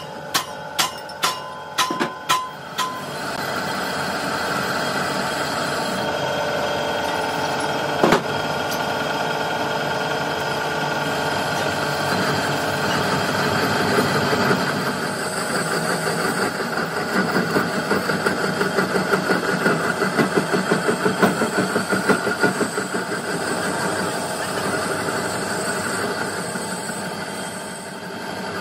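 About six ringing hammer blows on metal, roughly two a second, then steady running workshop machinery, with one sharp knock about eight seconds in and a fast pulsing rattle through the middle.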